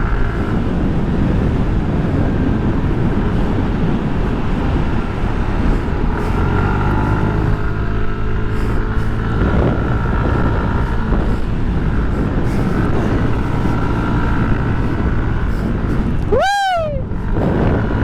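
Motorcycle engine running steadily under way, with wind rushing over a helmet-mounted microphone. Near the end comes a short cry that rises and then falls in pitch.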